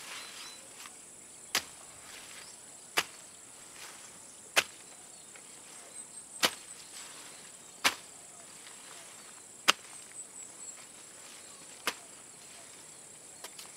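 A long-handled hoe chops into the hillside soil seven times, one sharp strike every one and a half to two seconds, over a steady high-pitched insect drone.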